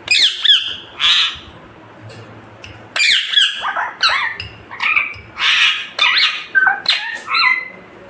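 Indian ringneck parakeet giving loud, sharp squawking calls that drop quickly in pitch: a short burst at the start, then a longer run of calls from about three seconds in.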